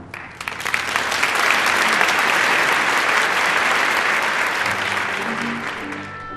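Audience applauding in a theatre. The clapping builds within the first second, holds, and fades near the end as the orchestra starts playing again.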